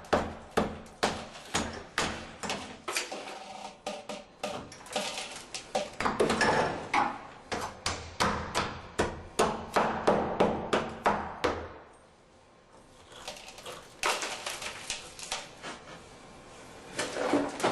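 Hammer blows on a tiled wall of light concrete with wire mesh, chipping out an opening: sharp strikes about two a second, stopping briefly about twelve seconds in, then a few more blows.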